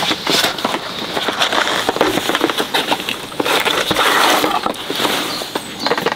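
Light rain dripping and pattering in irregular clicks. About four seconds in, the lid of a cardboard box of matches is slid off with a short scrape.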